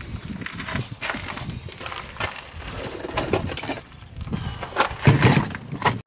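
Irregular clicks, scrapes and knocks of a two-stroke ATV carburetor being handled and turned in a plastic tub while its main jet is worked loose. There are a few sharp metallic clinks about three seconds in, and louder knocks near the end.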